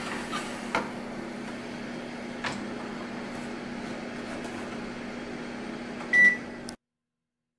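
Toshiba combination oven running with a steady hum, with a few clicks as the baking tray goes in and the door is shut and the dial is turned to set the time. About six seconds in comes one short, high beep as the setting is confirmed, and the sound cuts off right after.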